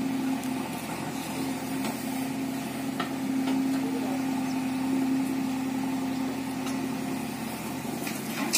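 Diesel engine idling steadily, a low even hum with a few faint clicks. Just before the end a louder rattling clatter starts.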